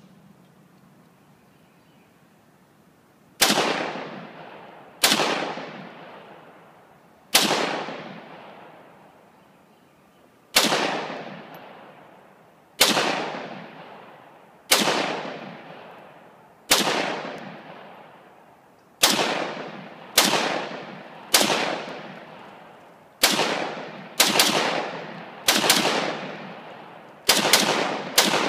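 SKS-based 7.62mm bullpup rifle firing about sixteen single semi-automatic shots at uneven intervals, the first about three and a half seconds in and coming faster near the end. Each crack trails off in a long echo.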